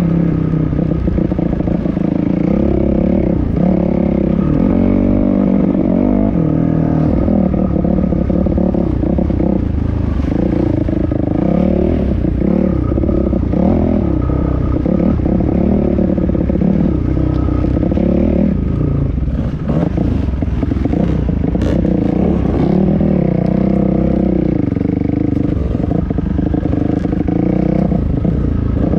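Dirt bike engine under way on a rough trail, its revs rising and falling as the throttle is worked, with the bike clattering over bumps. A few sharp knocks come about two-thirds of the way through.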